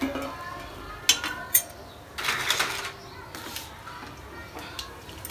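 Steel kitchen tongs clinking against a steel kadai and plate: two sharp clinks about a second in, then a short clatter as the tongs are laid on the kadai's rim.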